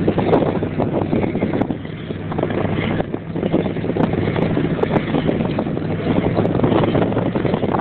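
Snowmobile engine running at a steady pitch, largely buried under wind noise buffeting the microphone at speed.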